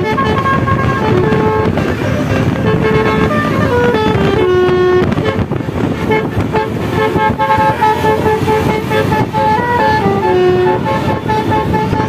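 Telolet melody horn on a modified Toyota Kijang Innova playing a tune of held notes that step up and down, several tones sounding together, over road traffic noise.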